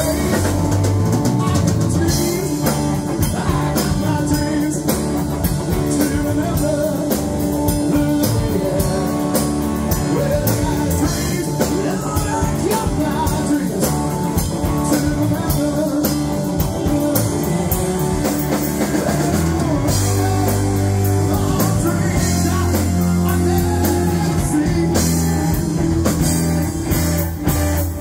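Live rock band playing a song: a male singer over two electric guitars, bass guitar and drum kit.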